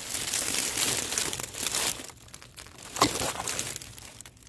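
Dry leaves and grass rustling and crackling as brush is pushed aside, dense for the first two seconds and then sparser, with one sharp crack about three seconds in.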